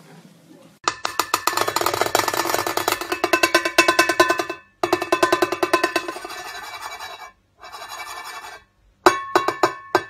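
A cockatoo pecking rapidly at the edge of a drum-kit cymbal with its beak: a fast clatter of many taps a second with the cymbal ringing. It comes in several runs with short breaks, then a few single ringing taps near the end.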